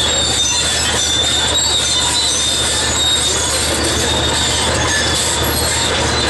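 Caterpillar D6 bulldozer working: its diesel engine running steadily, with high-pitched squealing from the steel crawler tracks.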